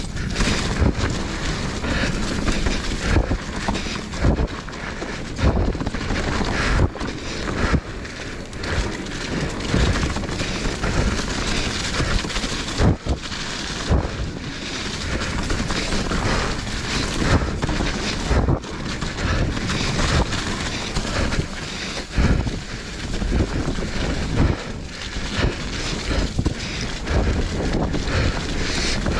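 Mountain bike riding a rocky, sandy trail: steady wind rush on the microphone and tyre noise, broken by frequent sharp knocks and rattles as the hardtail bike hits rocks.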